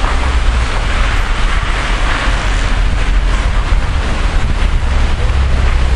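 Wind buffeting the microphone, a steady low rumble, over a wash of distant street noise from traffic and people in the square below.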